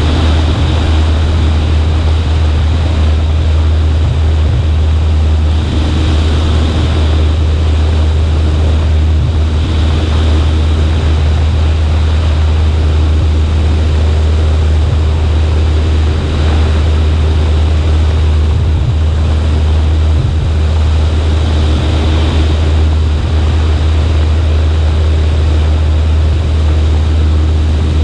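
Cessna 140A's piston engine and propeller droning steadily in flight, with an even rush of airflow noise over it.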